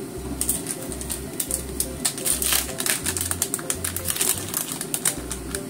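A plastic pouch of dried red chili pepper being handled and opened, crinkling in a dense run of crackles, over background music.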